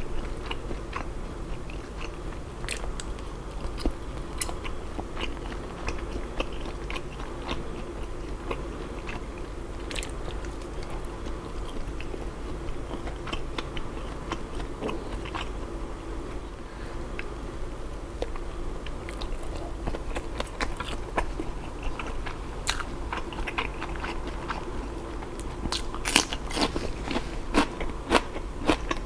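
Close-miked eating sounds: biting and chewing grilled mala-sauced skewered food and fresh cucumber slices, with many wet clicks and crisp crunches that come thickest near the end.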